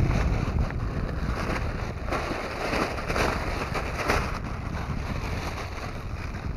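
Wind buffeting the microphone outdoors: a gusty low rumble, with a few brief hissing swishes in the middle.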